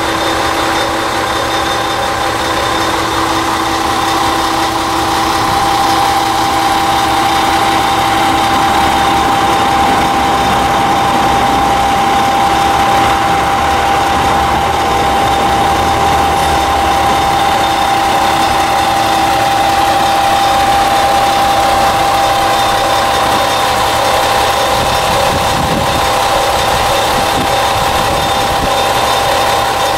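Diesel engine of a Moka Railway Mooka 14 series railcar idling, with a steady whine over the engine's hum.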